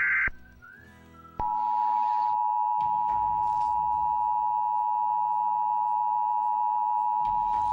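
Emergency Alert System test signal: the last short burst of digital header data ends just after the start. After about a second's pause the EAS two-tone attention signal begins and holds steady and loud.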